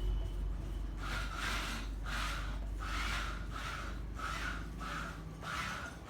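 Rhythmic scraping or rubbing strokes, about eight of them at roughly one and a half a second, starting about a second in, over a steady low hum.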